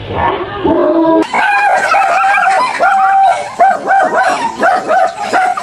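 A dog barking in quick, high-pitched yaps, about three a second, starting about a second in.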